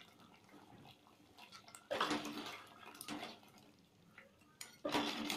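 A metal ladle stirring thick crab curry in a metal pot: wet sloshing and stirring in short bursts, about two seconds in, again near three seconds, and loudest near the end.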